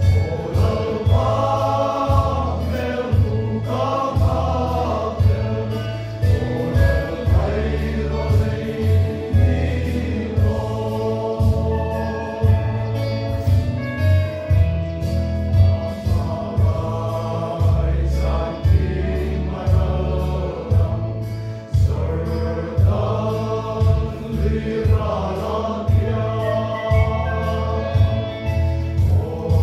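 A large congregation singing a hymn together, like a choir, with regular drum beats keeping time underneath.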